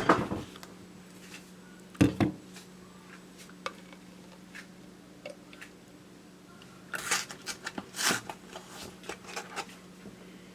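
Kitchenware being handled: a sharp knock at the start, another about two seconds in, and a burst of short clatters and scrapes near the end, over a steady low hum.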